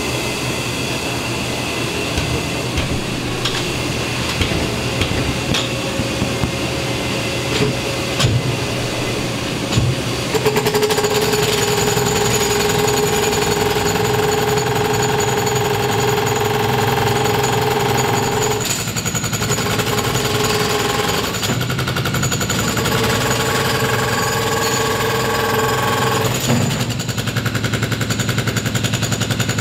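Milwaukee MX Fuel cordless breaker hammering concrete: from about ten seconds in, a rapid, even pounding with a steady hum, broken by two short pauses. Before that, only scattered knocks.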